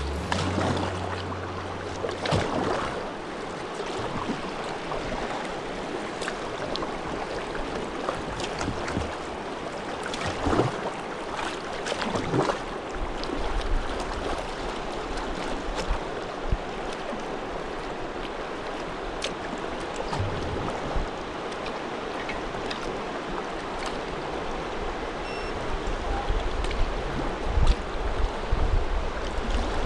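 Flowing river water, a steady rushing hiss, with a few sharper splashes in the first half and low bumps near the end.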